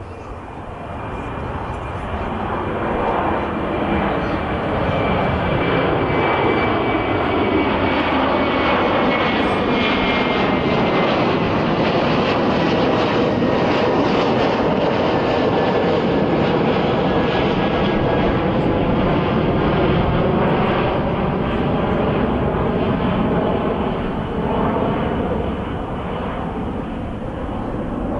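Airbus A330 twin-engine jet airliner climbing out after take-off and passing overhead. The jet noise builds over the first several seconds, stays loud while the aircraft is overhead, and eases as it climbs away. A high engine whine slides slowly down in pitch as it passes.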